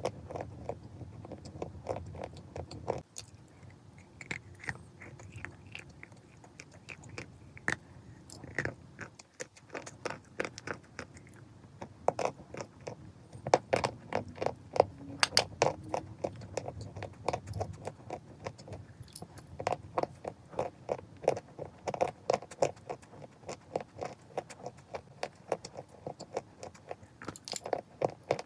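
A person biting and chewing chalk: dense runs of quick, dry crunches. The crunching grows louder and faster around the middle and again a little later.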